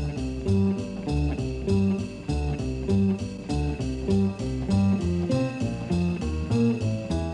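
Instrumental music with a steady beat and prominent low notes.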